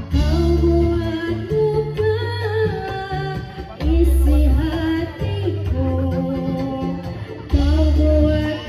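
Live music with a singer over a heavy, sustained bass line: the accompaniment to a jaran kepang dance.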